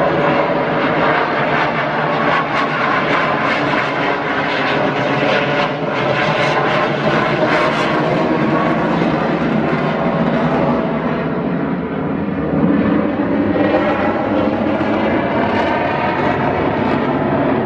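Aircraft engine noise from a display aircraft, loud and continuous, its pitch drifting slowly.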